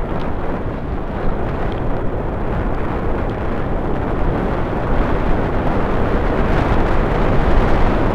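Wind rushing over the microphone of a camera on a bicycle riding downhill, a steady noise that grows slowly louder as the bike picks up speed.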